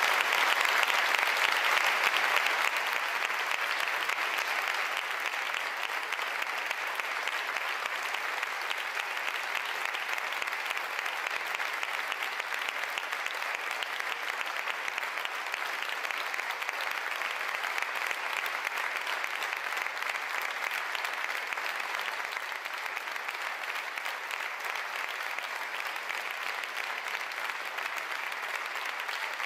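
A large audience applauding, loudest in the first three seconds, then steady and a little quieter.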